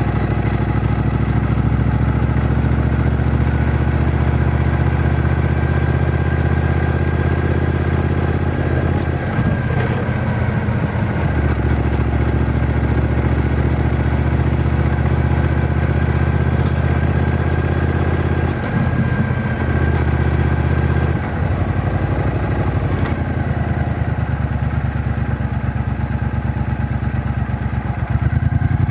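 Triumph Bonneville T120's 1200 cc parallel-twin engine and exhaust running under way, a steady low engine note. The note shifts briefly about a third of the way in and twice more past two-thirds, as the rider changes speed.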